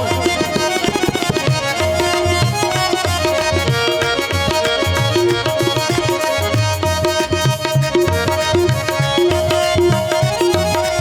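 Instrumental interlude of a devotional bhajan: a steady tabla beat under a melody of held notes.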